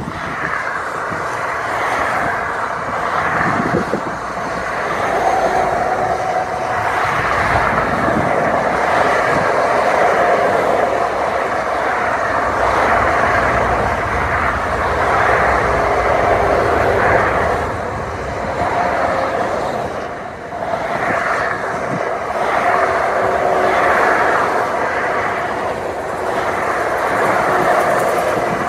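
Dual-carriageway traffic passing close by: tyre roar and engines of cars, vans and heavy military trucks, swelling and easing as each vehicle goes by.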